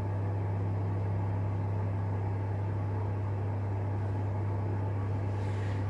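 Steady low hum with a faint even hiss behind it, unchanging throughout, with no distinct events.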